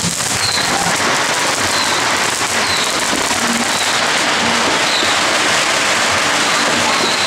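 Dense, continuous crackle of many firecrackers going off in the street, a steady rattle like heavy rain, with faint short high chirps every second or so.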